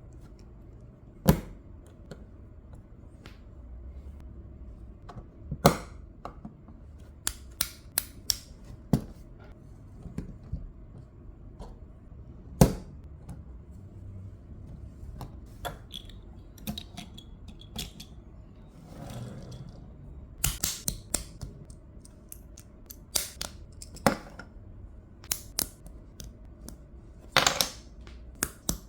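Small plastic LEGO pieces being handled and snapped together: irregular sharp clicks and taps, with a brief rustle a little past the middle.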